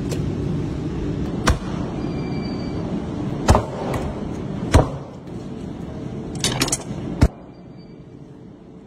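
Meat cleaver chopping through lamb on a wooden butcher's block: single sharp chops a second or two apart, with a quick flurry of knocks about six and a half seconds in. A steady low rumble runs underneath and fades after the last chop.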